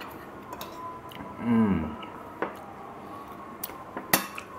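A person eating from a ceramic plate with a metal spoon: a few sharp clicks of the spoon against the plate, the strongest near the end. About a second and a half in comes a short, low hum from the voice that falls in pitch, the loudest sound.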